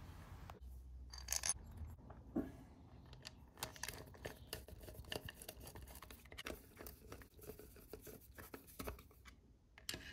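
Faint, irregular metal clicks and scrapes of a small hand tool as bolts are screwed into an engine's oil-line manifold.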